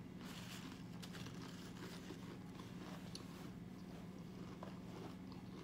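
Faint crunching and chewing of a Pringles potato chip with the mouth closed, a scatter of small crisp crackles, over a steady low hum.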